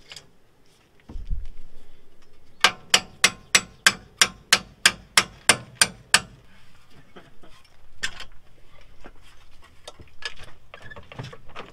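A hand tool striking metal at the front suspension of a 1997 Nissan Pathfinder, working parts loose to free the CV axle. It makes a quick run of about sixteen sharp metallic strikes, four or five a second, followed by a few scattered knocks.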